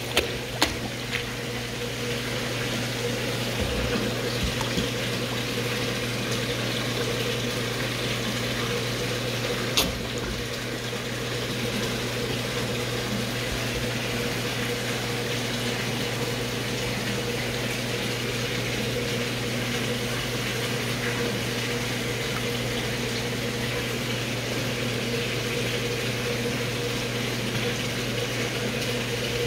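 Indoor pond's water circulation running: a steady rush of water over a low, even pump hum. A few short clicks near the start and one about ten seconds in.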